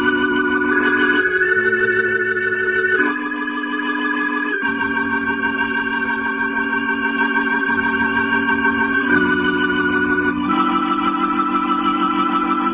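Closing organ music: slow, held chords with a wavering vibrato. The chord changes about a second in, again near 3 and 4.5 seconds, then holds until changes near 9 and 10.5 seconds.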